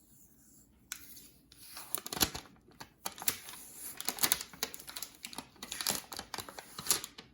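Plastic protective wrapping being peeled and unwrapped by hand, a run of irregular crinkles and crackles with a soft thump about two seconds in.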